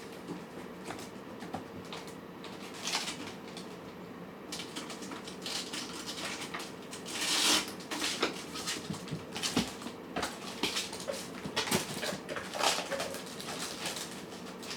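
Cats and kittens eating, with irregular small crunching and clicking sounds that grow busier about four seconds in, over a steady low hum.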